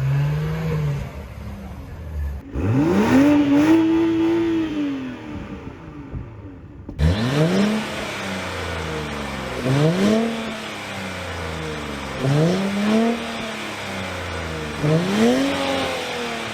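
Sports car engine being revved: one long rev held for a couple of seconds and let fall, then, after an abrupt cut, four short quick blips of the throttle spaced about two and a half seconds apart.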